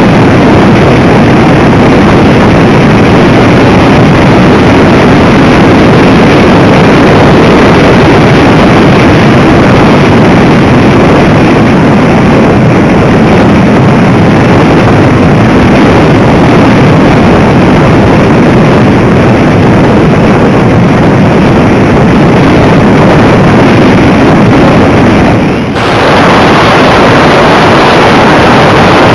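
Radio-controlled model aircraft heard through its onboard camera in flight: a loud, steady rush of wind and motor noise, briefly dipping about twenty-six seconds in.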